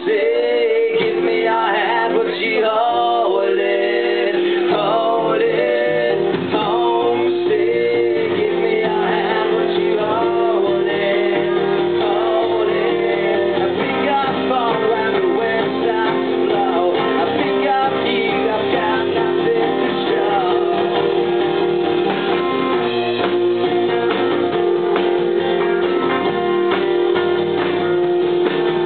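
Live rock band playing: acoustic and electric guitars and drums, with a man singing.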